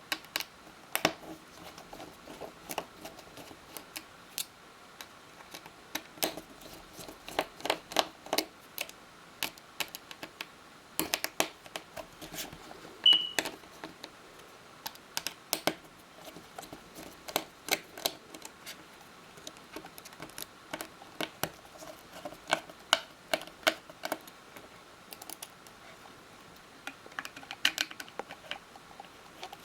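Small irregular clicks and taps of a precision screwdriver and metal tools working the tiny internal screws of an opened iPhone 5, with one brief high squeak about 13 seconds in.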